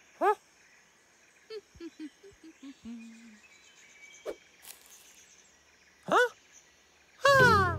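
Cartoon monkey's short wordless vocal exclamations: a quick questioning call near the start, another about six seconds in, and a louder one at the very end. Between them, a run of short soft chirping blips and a single click over faint jungle ambience.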